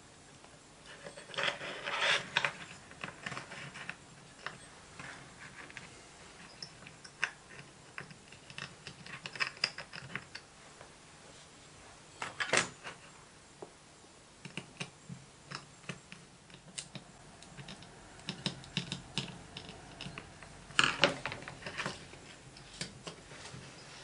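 Irregular small clicks, taps and rustles from hands handling a small circuit board, a plastic battery box and wires on a workbench, with a few louder clicks about two seconds in, around the middle and near the end.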